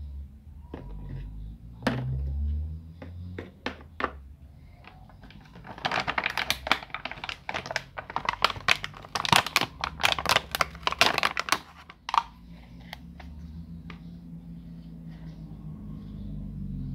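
Small plastic toy furniture pieces clicking and knocking as they are handled and set down on cardboard, then a few seconds of dense plastic crinkling and crackling as the next piece is unwrapped.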